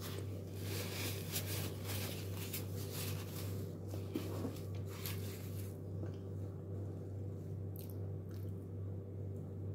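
Soft squishing and rustling of food being handled by hand on a plate, dense for about the first six seconds and then only a few faint clicks, over a steady low hum.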